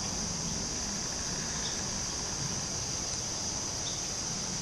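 Outdoor insect chorus, likely crickets, a steady unbroken high-pitched trill, over a faint low background rumble.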